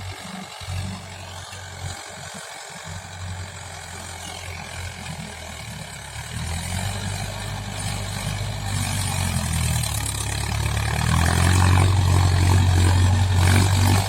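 Mahindra tractor's diesel engine running while ploughing, a steady low hum that grows steadily louder through the second half and is loudest near the end.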